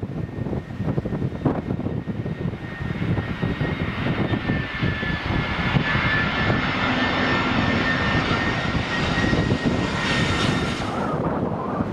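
Landing jet airliner passing low overhead on final approach: the engines' roar and high fan whine build steadily over several seconds, then the whine drops away sharply about eleven seconds in as the aircraft goes over. Strong wind rumbles on the microphone throughout.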